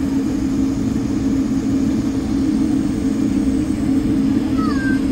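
Steady cabin hum of a jet airliner taxiing, heard from a seat by the wing, with a low rumble under a droning tone.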